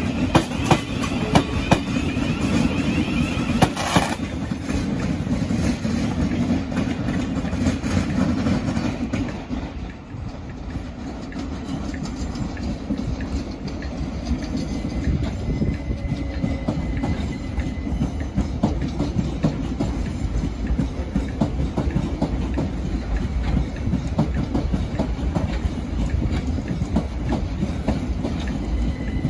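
Thameslink Class 700 electric multiple unit running past, its wheels clacking sharply over rail joints through the first few seconds. About ten seconds in the sound dips, then a steady rumble builds as a Gatwick Express Class 387 electric train approaches.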